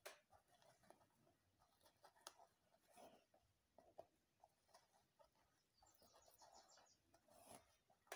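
Faint rustling and scratching of fingers working braiding hair into cornrows, with a couple of soft clicks.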